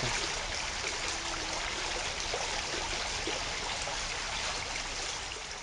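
Small forest river running over a shallow riffle: a steady rushing of water, easing off slightly near the end.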